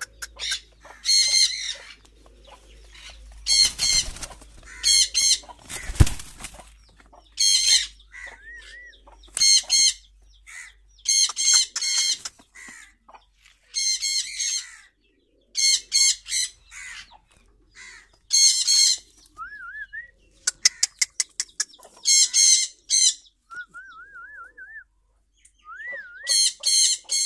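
Pigeon giving repeated bursts of high-pitched squeaky calls, a burst every second or two, with a few short wavering whistles in between.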